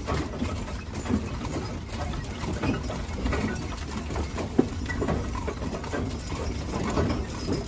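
Horse-drawn wagon on the move behind a team of two Haflinger horses: a steady low rumble of the wheels with scattered hoof clops and knocks of the wagon and harness.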